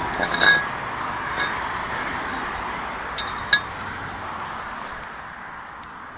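Small metallic clinks in the first half second, then two sharp clicks about three seconds in, over a steady hiss that fades toward the end.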